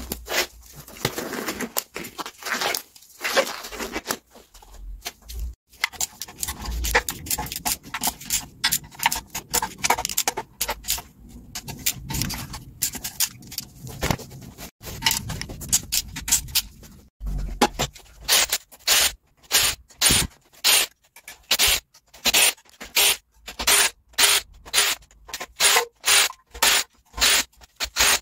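Hand-tool work on an engine block: gloves being pulled on, scraping and clicking, then in the last ten seconds a socket ratchet worked in quick, even strokes, about two a second, undoing the sump bolts.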